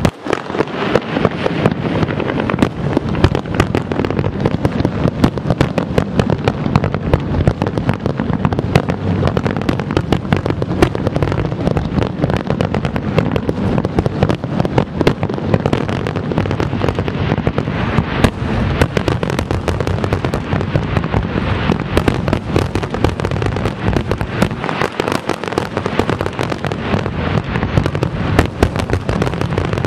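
A large aerial fireworks display: a dense, unbroken barrage of shells bursting with bangs and crackling, dozens of reports overlapping throughout.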